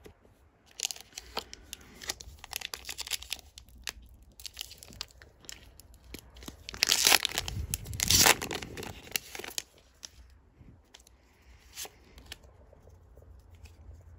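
A foil Pokémon booster pack wrapper being torn open, crinkling as it is handled. There are two loud rips about seven and eight seconds in, followed by quieter rustling of the cards being handled.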